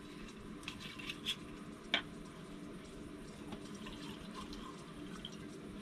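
Light clinks and handling of a drink container with a little liquid being poured, over a faint steady low hum from a microwave running off an inverter.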